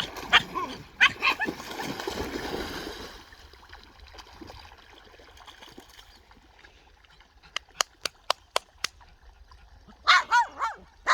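Dogs barking and yipping, in a cluster about a second in and again near the end, with a quick run of about six sharp clicks in between.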